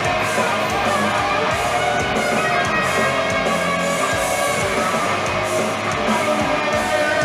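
Continuous music with guitar playing, steady in level.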